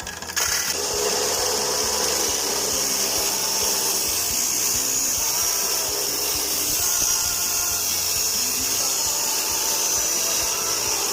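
Angle grinder cutting a piece from a steel motorcycle bumper: a steady, high-pitched grinding that starts about half a second in.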